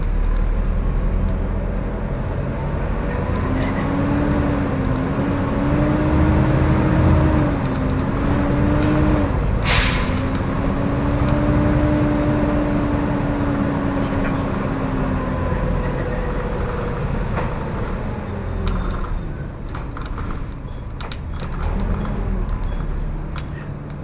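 Volvo B7TL double-decker bus running under way, its engine giving the loud 'hoovering' whine that rises and falls in pitch from a few seconds in until about two-thirds of the way through. A short sharp burst of noise about ten seconds in, and a high beep lasting about a second a little later.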